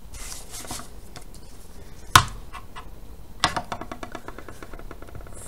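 Construction-paper strips rustling as they are slid about on a tabletop, a single sharp knock about two seconds in as a steel ruler is laid down, then light rapid clicking near the end.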